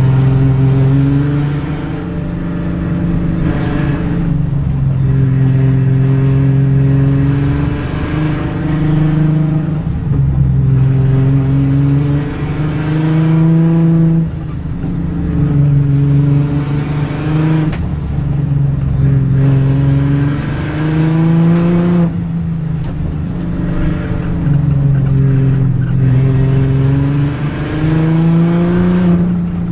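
Turbocharged Ford Barra inline-six engine at full race effort, heard from inside the cabin, its revs climbing and then dropping again and again every few seconds as the car accelerates and slows through the course.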